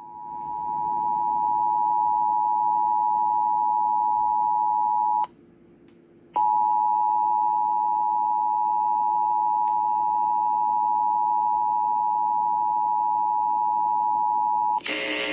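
Emergency Alert System attention signal on an FM radio broadcast: a loud, steady two-tone alarm tone. It breaks off for about a second about five seconds in, then resumes. Just before the end it gives way to a different sound made of many tones.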